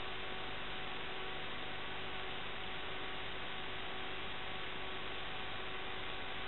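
Steady hiss with a faint, unchanging hum in it: the audio channel of an analogue FPV video link, recorded on the DVR along with the picture from the plane.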